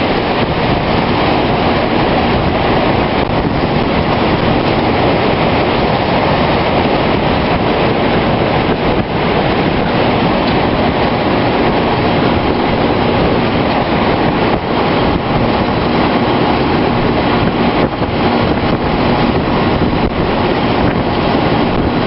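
Steady, loud roar of a large tornado's wind at close range, with wind buffeting the microphone.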